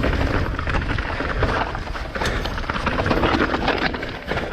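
Mountain bike riding fast over a rough, rocky trail: tyres crunching and the bike rattling in a dense run of clicks and knocks, with wind rumbling on the microphone.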